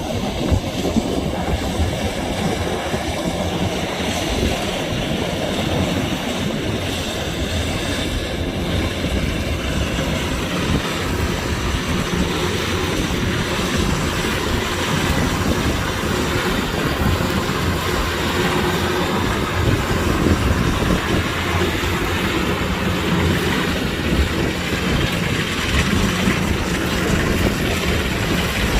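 Kubota combine harvester running steadily: its diesel engine and machinery make a continuous low rumble with a faint steady hum.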